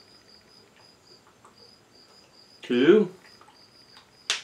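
A cricket chirping in quick, evenly spaced high pulses. A man's short vocal sound comes about two and a half seconds in, and a sharp click near the end.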